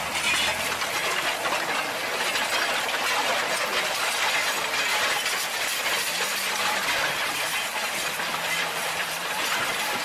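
Tume Maximaster 6001 direct drill working a stony field: its disc coulters and press wheels grinding through soil and stones, a dense, steady rattle and clatter of stones and metal.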